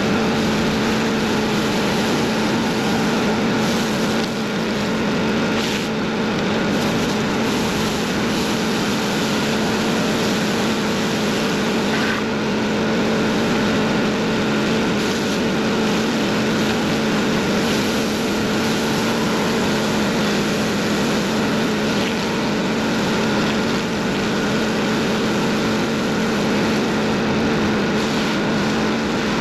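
Stihl RB 400 gas pressure washer's engine running steadily at constant speed, with the hiss of the high-pressure spray.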